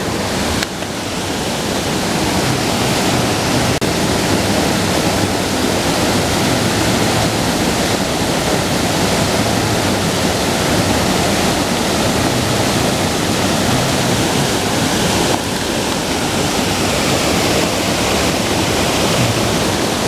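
A creek waterfall running, a steady rush of falling and churning water.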